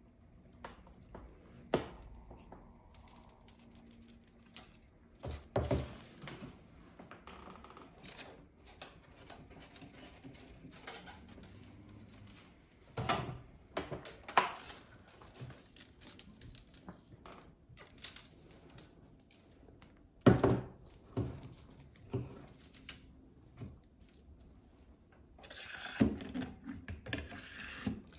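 Hard plastic knocks and clicks as a 3D-printed hub adapter is pressed into a plastic filament spool and the spool is handled, with a longer stretch of scraping and rustling near the end as the spool is fitted onto its holder.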